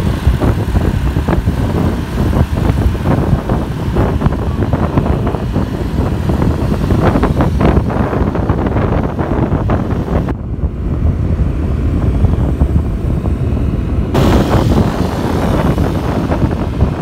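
Heavy wind buffeting on the microphone of a moving motorcycle, a loud uneven low rumble mixed with engine and road noise. For a few seconds past the middle the hiss above it drops away and only the low rumble remains.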